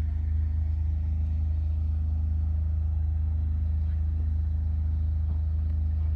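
An engine running steadily with a constant low drone.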